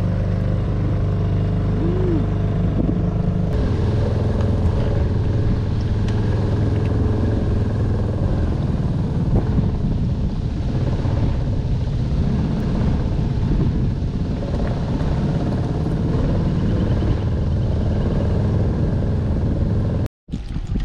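Small boat's outboard motor running steadily under way, a level engine hum. About three and a half seconds in the sound changes abruptly to a rougher, noisier rumble.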